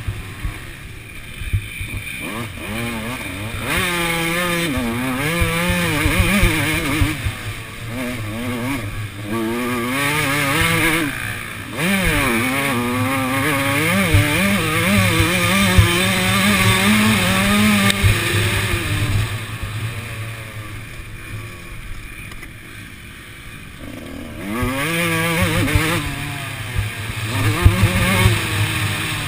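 Two-stroke Suzuki RM motocross bike engine under race load, revving up hard and backing off again and again through the corners and straights. The throttle is shut for a few seconds about two-thirds of the way through, then it revs hard once more.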